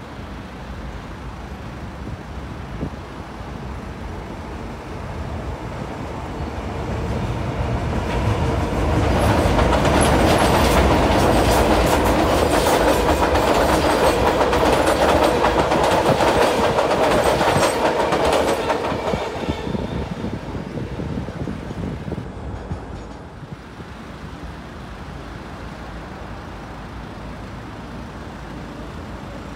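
Sydney Trains Tangara electric train passing over the railway viaduct. Its rail noise grows over several seconds, stays loud for about ten seconds in the middle with a rapid clatter of wheel clicks, then fades away about twenty seconds in, leaving steady distant traffic.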